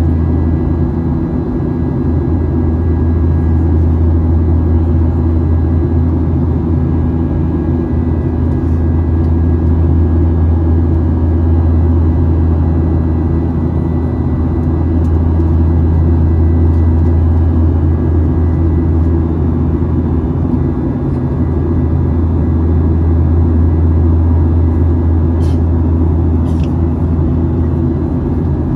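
Steady cabin drone of a Boeing 737-900ER's CFM56-7B turbofan engines and airflow during the climb after takeoff, heard from a seat over the wing: a deep, even hum with a faint steady high whine. Two faint clicks sound near the end.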